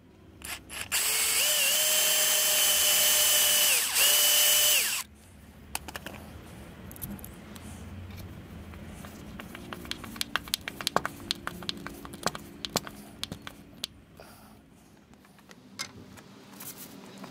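Cordless drill drilling up into a wooden tabletop through a cast-iron bracket, running at a steady high whine for about four seconds with a brief break near the end. It is followed by irregular light clicks and knocks of hand work at the bracket.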